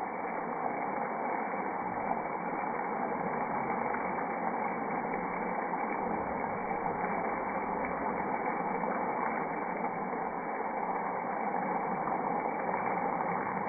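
Julienned potato strips frying in hot oil in a pan, a steady sizzle.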